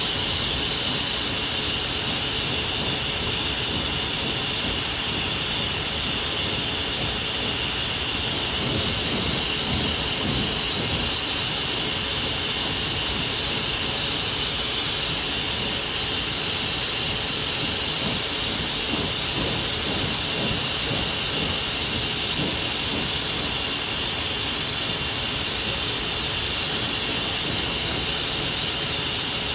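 Pet blow dryer running steadily with a constant airy hiss, blowing through a dog's coat.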